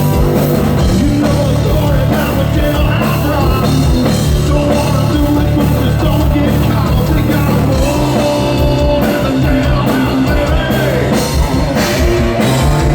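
Rock music played loud, with a drum kit and singing.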